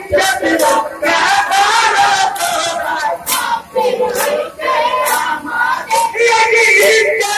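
A crowd of men chanting loudly together, with sharp claps or slaps about once a second.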